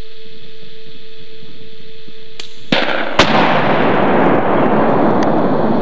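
Demolition charge detonating downrange: two sharp cracks half a second apart, a little under three seconds in, followed by a long rumbling roar that slowly fades.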